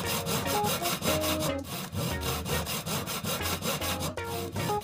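Sandpaper rubbed by hand back and forth over wood, a rasping scrub in rapid, even strokes.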